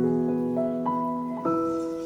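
Background music: a slow, soft piano passage with sustained notes.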